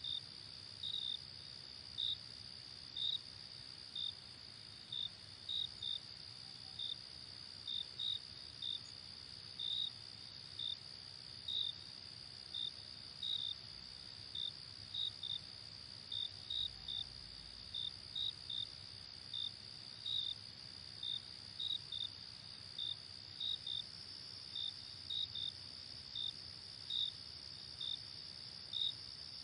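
Night insect chorus: a steady high-pitched trill with crickets chirping over it in short, irregular pulses, roughly one or two a second.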